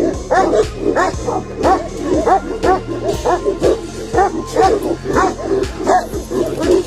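Tibetan mastiff barking rapidly and repeatedly, about three barks a second, over background music.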